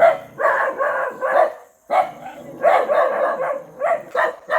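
A puppy barking and yelping in quick runs of short, high calls, with a brief break a little under two seconds in.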